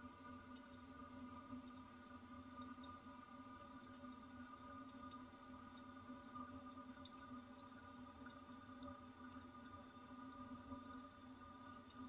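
Toilet tank refilling: the fill valve gives a faint, steady pitched hum, with light drips of water scattered through it.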